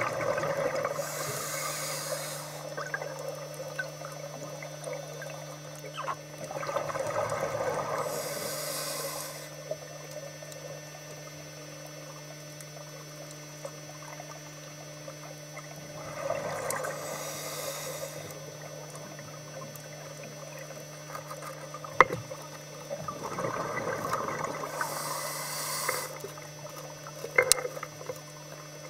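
Scuba regulator breathing underwater: four rounds of bubbling and hissing, each two to three seconds long and several seconds apart, over a steady low hum. A sharp click comes about two-thirds of the way in and a few more near the end.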